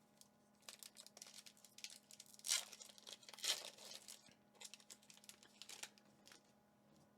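A foil Pokémon booster pack wrapper being torn open and crinkled, with two louder rips about two and a half and three and a half seconds in among lighter crackling.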